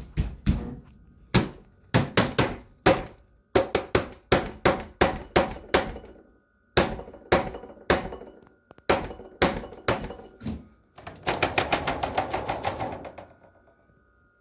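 Loud, repeated knocking, irregular at first, then a fast drumming flurry for about two seconds near the end. It is banging made to scare a raccoon off a bird feeder.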